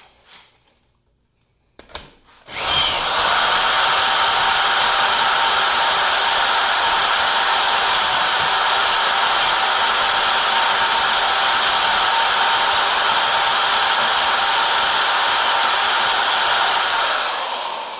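Milwaukee 90-degree drill boring into a padlock's body, starting about two and a half seconds in after a couple of short clicks and running at a steady speed with a high whine, then winding down near the end.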